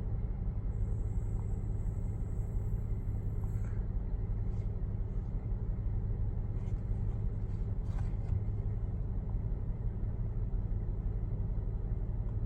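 Toyota Sienna's 3.5-litre V6 idling with a steady, even low hum, its fuel injectors freshly cleaned. A few faint clicks and a faint high tone sound over it.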